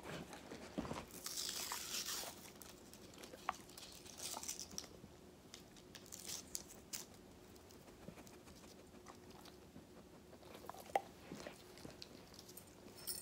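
Faint crinkling and crunching of a foil blister pack as a NexGard Spectra chewable tablet is worked out of it, loudest about a second in, followed by scattered small clicks.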